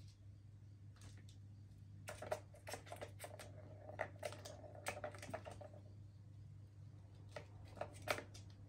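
Plastic balls clicking and rattling in the tracks of a three-tier plastic cat ball tower as kittens bat at them: a flurry of quick clicks through the middle, then a few more near the end.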